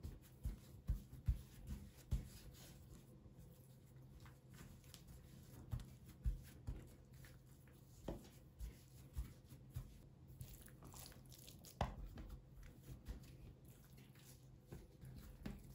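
Hands pressing and pulling a sheet of layered, oil-greased dough on a tabletop: faint, irregular soft pats, squishes and little taps as the fingers press and stretch it. A faint steady low hum sits underneath.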